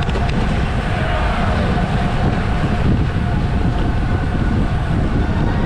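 Wind rushing over a camera microphone during a bicycle race, a steady heavy low rumble, with faint distant voices.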